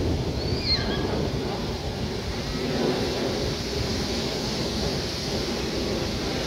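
Wind rumbling on the microphone over a steady wash of beach noise. A brief high gliding chirp comes about half a second in.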